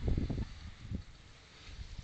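Husqvarna 250 two-stroke motocross bike's engine running with uneven low thumps that die away within the first half second, leaving only faint wind and outdoor background.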